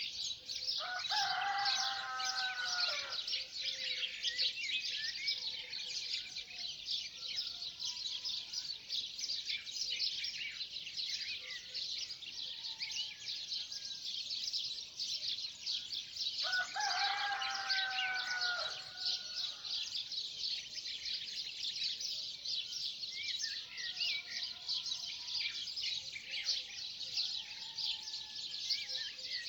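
Dawn chorus of many small birds chirping densely and continuously, with a rooster crowing twice: once about a second in and again about halfway through.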